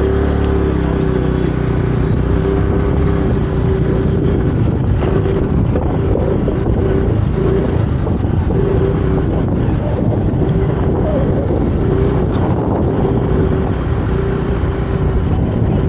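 Motorcycle on the move: engine running under a steady low rumble of wind buffeting the microphone.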